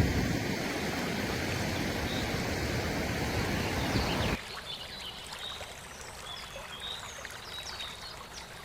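River water rushing, a loud steady wash up close; about four seconds in it cuts off abruptly to quieter flowing water with short high chirps over it.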